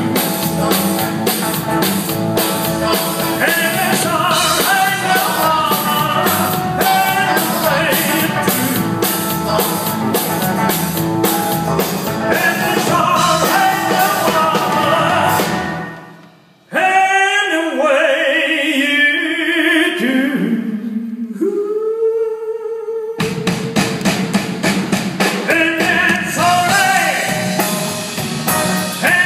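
A live rock and roll band plays, with acoustic and electric guitars and drums under several men singing. About two-thirds through, the band cuts out and the voices go on alone for several seconds, ending on a held note, before the full band crashes back in.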